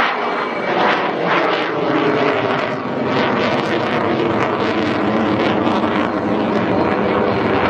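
Chengdu J-10C single-engine jet fighter flying a steep climb. Its jet engine makes a steady, loud rush.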